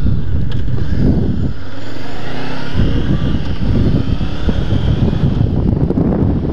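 Wind buffeting a helmet-mounted camera microphone on a moving motorcycle, with the Honda CB500X's parallel-twin engine running underneath. The engine note glides up and back down about midway through.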